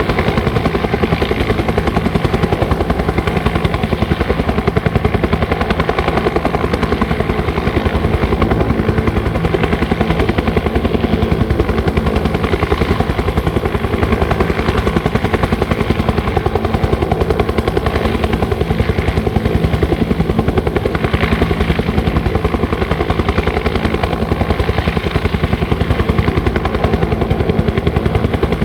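Bell 205 helicopter running steadily: the two-bladed main rotor beats in a rapid, even chop over the drone of its single turboshaft engine, with no change in pitch or loudness.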